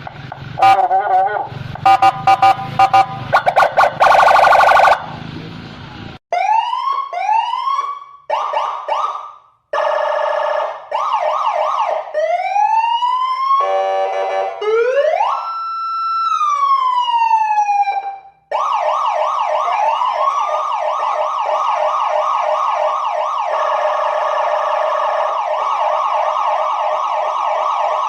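Indonesian police escort electronic siren switching through its tones. It starts with broken, horn-like blasts, moves to quick rising chirps and then one slow rise and fall, and about two-thirds of the way in settles into a fast, repeating yelp.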